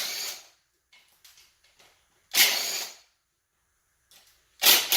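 Cordless drill driver with a socket spinning out an engine's oil pan bolts, in three short bursts of under a second each, with light clicks of the socket and bolts between.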